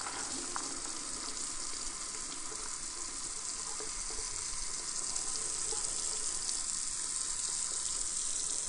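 Kitchen tap running cold water into a stainless-steel sink, splashing through a plastic colander of cooked elbow macaroni to rinse off the starch. A steady hiss that gets a little louder about halfway through.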